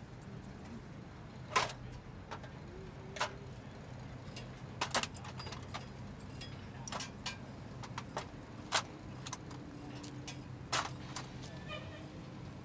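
Hand tools clinking against metal machinery: a scattering of sharp, separate clinks and knocks, the kind made while a bolt is tightened with a wrench, over a steady low hum.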